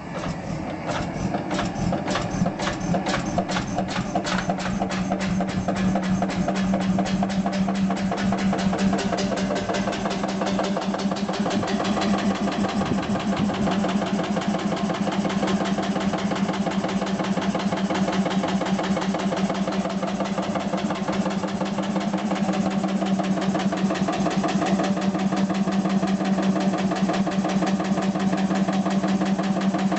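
Kelly and Lewis H1 two-stroke hot bulb engine running, its firing beats quickening over the first few seconds and then settling into a steady, even run.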